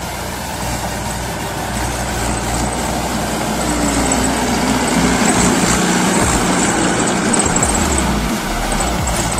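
Mahindra 415 SP Plus tractor's diesel engine running steadily, getting louder through the first half and then holding.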